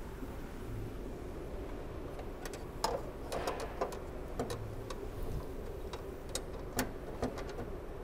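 Light, irregular clicks and taps as a transmission control module and its bracket are fitted by hand and its bolts started, about a dozen over a few seconds beginning about two and a half seconds in, over a steady low hum.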